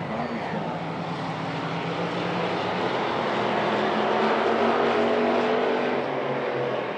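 Hobby stock race cars running at speed around the oval, their engines held at a steady pitch. The sound builds as the cars come closer, loudest about four to five seconds in, then eases.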